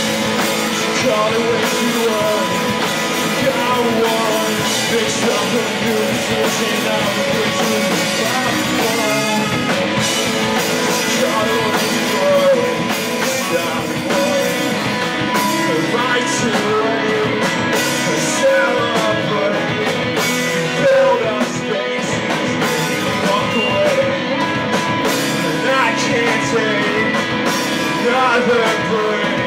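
Live emo/post-hardcore rock band playing electric guitar, bass guitar and drum kit, loud and steady throughout.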